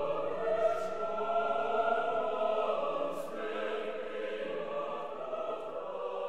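A choir singing slow, sustained chords.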